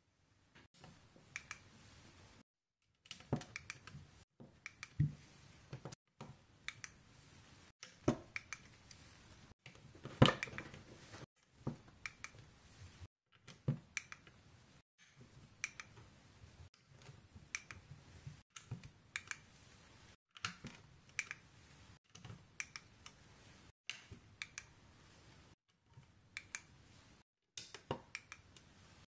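LEGO tiles and plates being pressed onto a baseplate's studs: an irregular run of sharp little plastic clicks and taps, with a louder snap about ten seconds in and brief silent gaps between runs.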